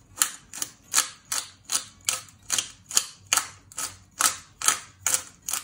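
Twist-top spice grinder grinding chili flakes, its grinding cap clicking in an even rhythm of about three clicks a second as it is turned back and forth.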